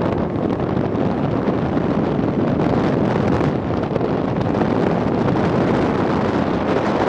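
Strong wind buffeting the microphone, a steady rushing noise with no thunder claps.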